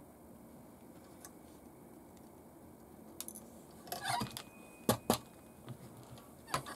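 Small sharp clicks and knocks of hard plastic and metal parts of an RC truck kit chassis being handled on a workbench, sparse at first and then a cluster in the second half, the loudest two close together about five seconds in.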